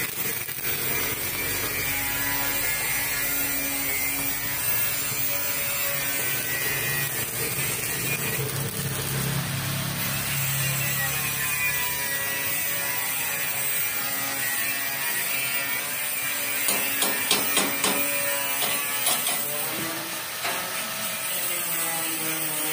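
Stick (arc) welding on steel harrow parts: a steady crackling hiss from the welding arc, with a few sharp metal knocks about seventeen seconds in.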